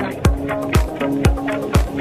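Background music with a steady dance beat: a kick drum about twice a second under held chords.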